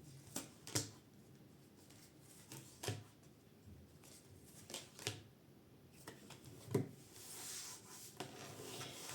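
Tarot cards being handled on a table: a few separate soft taps and flicks as a card is drawn from the deck and laid down, then a faint rustle of cards sliding near the end.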